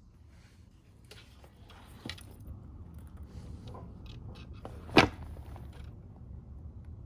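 Scattered light clicks and knocks over a low steady rumble, with one sharp knock about five seconds in that is the loudest sound.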